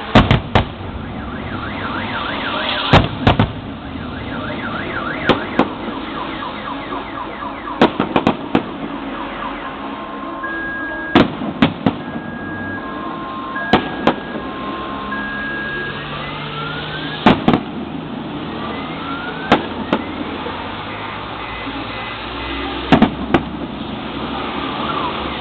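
Fireworks shells bursting with sharp bangs every few seconds, often two or three close together. Between them a car alarm sounds, with rising sweeps and then alternating two-tone beeps.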